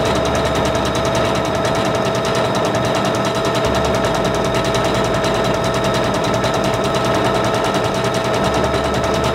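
Singer Confidence 7640 sewing machine sewing a decorative stitch at a steady speed: an even motor whine over fast, regular needle clatter.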